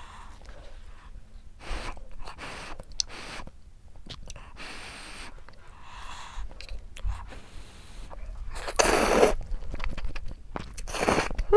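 Instant cup ramen noodles being eaten with chopsticks: quiet chewing and small mouth sounds, then two loud slurps of noodles near the end.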